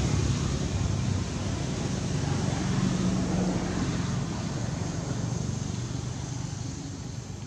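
Steady low rumble with a faint low hum, easing off slightly toward the end.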